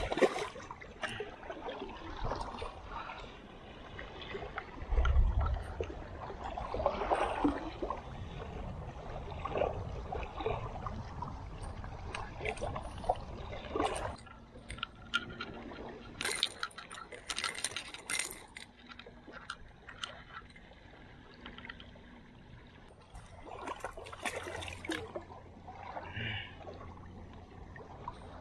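Shallow beach water sloshing and trickling around a wader's legs, with sharp splashes now and then, a cluster about halfway through and another near the end. A low thump comes about five seconds in.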